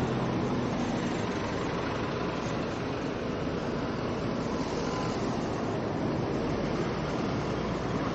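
Road traffic passing close by: double-decker buses and minibuses driving past with a steady rumble of engines and tyres.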